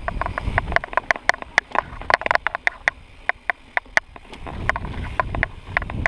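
Mountain bike rattling and clattering over a bumpy dirt trail on a descent: a quick, irregular run of sharp clicks and knocks from the bike and camera mount, over a low rumble that swells near the start and again about five seconds in.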